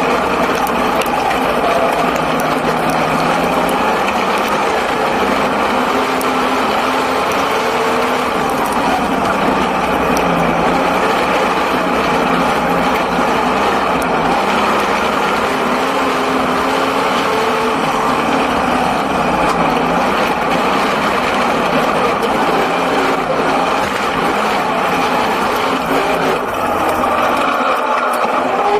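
Six-cylinder speedway sedan engine heard from inside the cockpit, running continuously with its revs slowly rising and falling.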